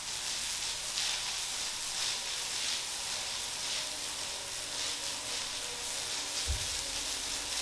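Soap suds on a wet floor fizzing as the foam breaks down, a steady hiss. A single low thump about six and a half seconds in.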